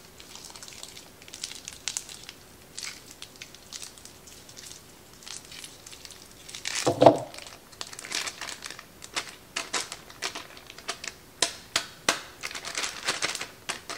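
Plastic film wrapper of a ground-beef chub crinkling and rustling in the hands as the meat is squeezed out of it into a bowl, with one louder thump about seven seconds in.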